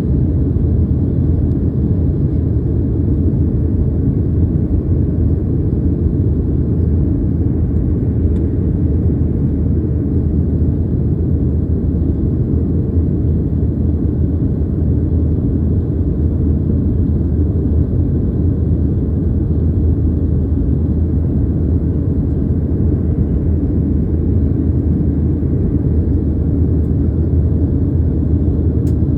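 Steady, loud low rumble with no change in it.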